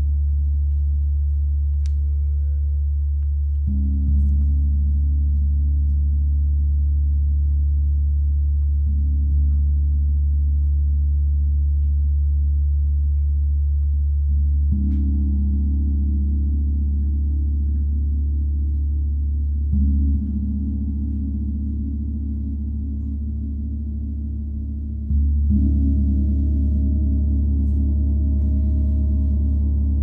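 32-inch Paiste Symphonic gong ringing in a steady, deep wash of low tones, struck again about every five seconds (five strokes) so the sound never dies away.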